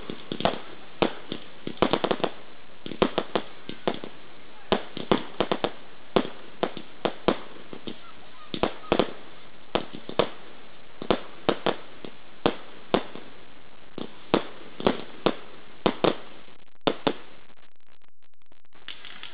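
Aerial fireworks going off: a rapid, irregular string of sharp bangs from shells bursting overhead, several a second, which stops about seventeen seconds in.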